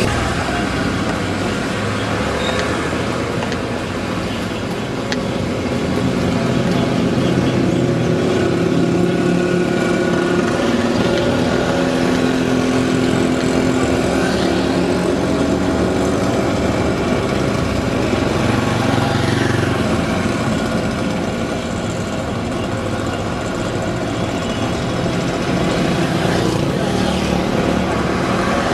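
Engine and road noise from riding in a motor vehicle along a town street, with small motorcycle engines in the traffic around it; the engine pitch rises and falls a little near the middle.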